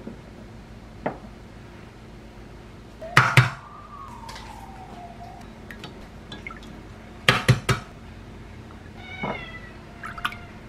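Boiled eggs and glassware clinking and knocking in a glass measuring cup of ice water and on a stone counter. There is a cluster of sharp knocks about three seconds in, followed by a clear tone sliding down in pitch for about two seconds. A second cluster of knocks comes about seven seconds in, with lighter clicks in between.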